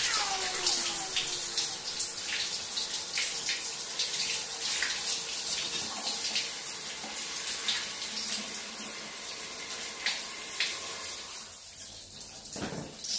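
Shower spray running steadily over a person's head and shoulders and splashing in a tiled shower stall, an even hiss of falling water, with a brief louder burst near the end.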